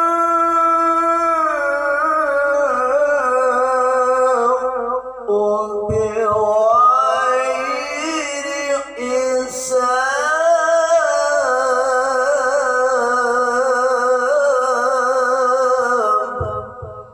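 A man reciting the Qur'an in the melodic tilawah style, drawing out long ornamented notes with a wavering vibrato over several sung phrases. The last phrase fades out near the end.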